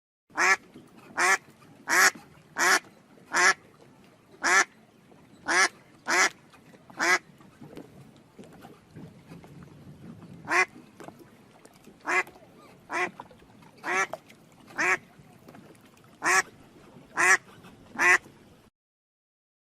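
A duck quacking over and over: short, loud quacks in runs of two to four, with a lull of about three seconds midway.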